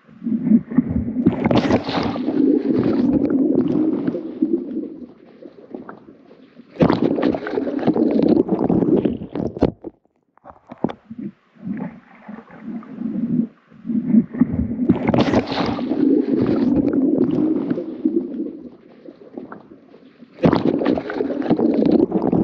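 A rescue boat running on the water in four bursts of a few seconds each, with water churning and splashing.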